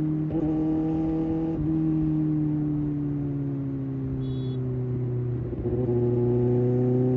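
Kawasaki ZX-6R's inline-four engine running under way. Its pitch sinks slowly as the bike slows, steps up about five and a half seconds in, then climbs again as it picks up speed.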